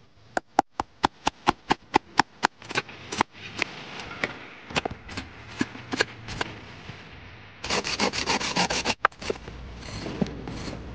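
A quick run of sharp clicks or taps, about four a second, spacing out over the first three seconds, followed by rubbing or scraping noise with a dense flurry of rapid clicks about eight seconds in.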